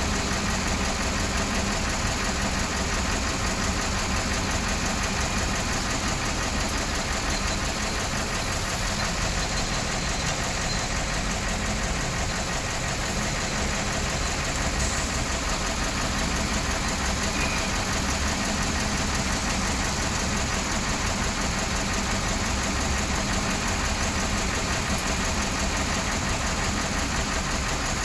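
Diesel engine of a Hyundai hydraulic excavator running steadily at close range while the machine digs and loads soil.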